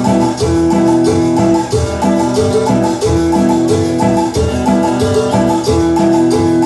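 Latin dance music played loud over a party sound system: a keyboard melody of repeating notes over a steady percussion beat.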